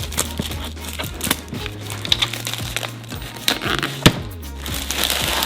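Plastic toy egg packaging being opened and handled by hand: a run of small clicks and crackles, with a sharp snap about four seconds in. Soft background music plays under it.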